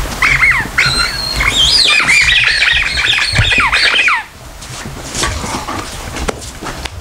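Dog's squeaky toy squeaking in a quick run of high squeals that rise and fall, for about four seconds, then stops.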